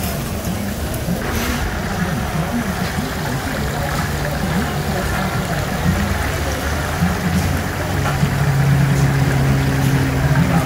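Chicken deep-frying in large woks of hot oil, a steady sizzling bubble, over a low steady rumble that grows louder in the last few seconds.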